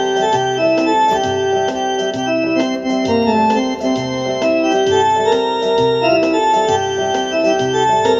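Instrumental keyboard music with a steady beat: held organ-like chords over a repeating bass line.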